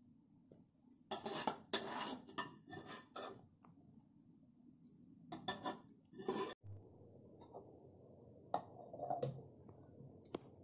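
A steel ladle clinking and scraping against a serving bowl in three short bouts of clatter, with a single knock near the end.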